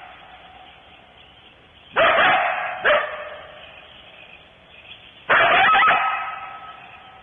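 Coyotes barking: a harsh bark about two seconds in, a short one just after, and another long bark past the middle, each fading out over about a second.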